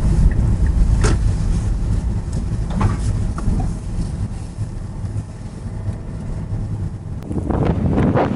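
A car driving along: a steady low rumble of engine and tyres on the road, with a few faint knocks and rougher noise near the end.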